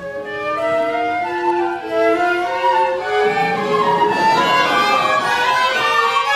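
Small live pit ensemble playing, a violin carrying a quick melody of short notes over bowed strings, climbing higher around the middle.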